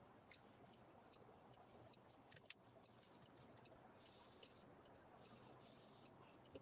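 Near silence: a faint hiss with light, scattered ticks and a few short swells of hiss.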